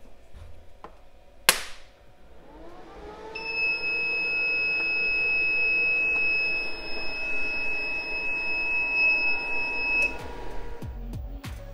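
A sharp electrical snap as the battery circuit is closed to wake the BMS. Then the inverter starts up: a hum rises in pitch and settles, and a steady high-pitched beep sounds for about seven seconds before stopping. Background music comes in near the end.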